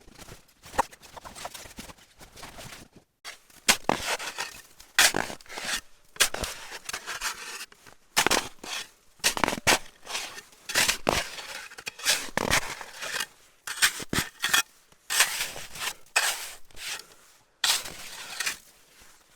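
A shovel digging into packed snow: repeated scraping and crunching strokes, roughly one a second, with short pauses between them.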